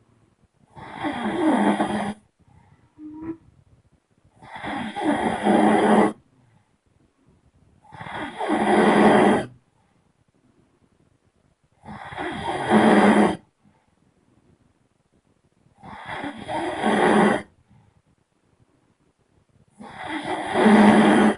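A person snoring: six long snores, each about a second and a half, coming about every four seconds with quiet between them.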